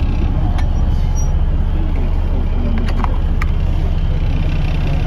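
Semi truck's diesel engine running steadily, heard from inside the cab as a constant low drone, with a few faint clicks about a second and three seconds in.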